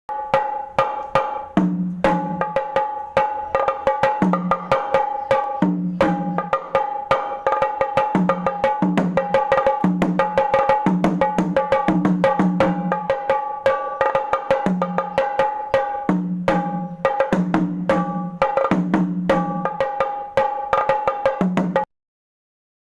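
Fast, dense traditional drumming, many sharp strokes a second, typical of the Kandyan drums of an Esala Perahera procession, with a steady high tone held over it throughout. It cuts off suddenly near the end.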